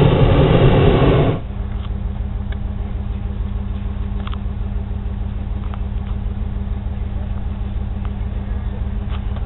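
Hot-air balloon propane burner firing with a loud roar that cuts off about a second in. Afterwards a steady engine hum carries on, with a few faint clicks.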